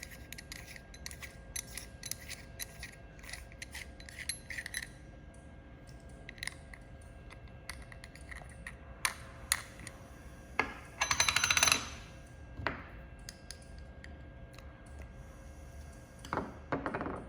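Small metal parts of a jewelry laser welder's lens holder clicking and scraping as they are handled, a cluster of light clicks at first and a louder scrape about eleven seconds in, over a faint steady hum.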